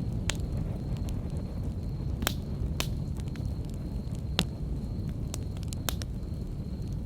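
Wood campfire burning: a steady low rumble with irregular sharp crackles and pops from the logs, about eight in a few seconds. A faint steady high whine sits underneath.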